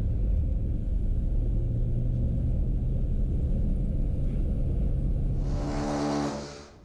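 Car driving along a road, heard from inside: a steady low engine and road rumble. Near the end a brief louder rushing sound comes in, then the rumble cuts off.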